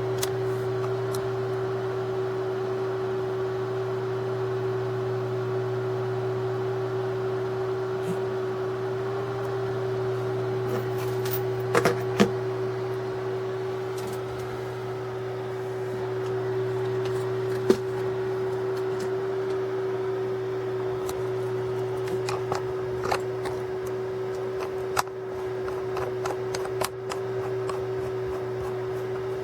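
A steady mid-pitched hum with a lower drone beneath it, with a few sharp clicks and taps scattered through the second half.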